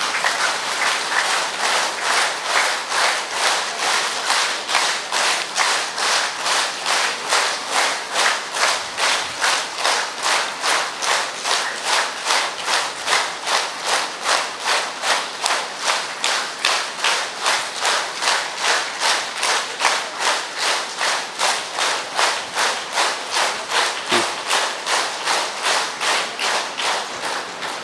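A large crowd clapping in unison in a steady rhythm, about two and a half claps a second, easing off just before the end.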